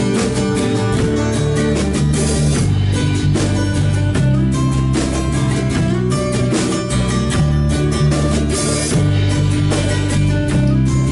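A small band playing: guitar over a drum kit, with a steady beat.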